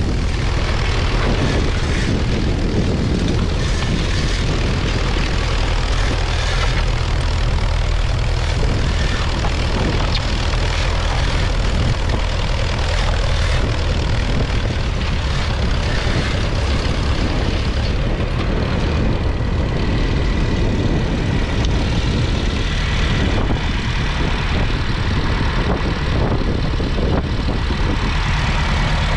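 Massey Ferguson 35's 2.3-litre four-cylinder diesel engine running steadily under load, pulling a two-furrow mounted plough through the soil.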